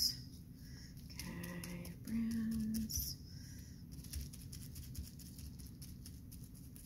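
Paintbrush dabbing paint onto plastic bubble wrap, with faint light taps and crinkles. Two short, low pitched vocal sounds come about a second in and just after two seconds; they could be a hum or an animal's whine.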